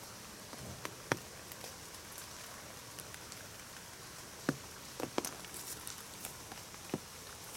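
Rain falling on an umbrella: a steady hiss with a handful of heavier drops hitting it sharply, one about a second in and several more between about four and a half and seven seconds.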